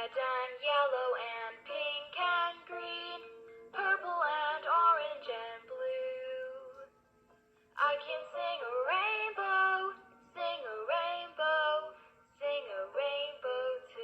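A short children's song sung by a synthetic-sounding female voice, played from a children's button sound book's small speaker. It comes in two sung phrases with a brief pause about halfway through.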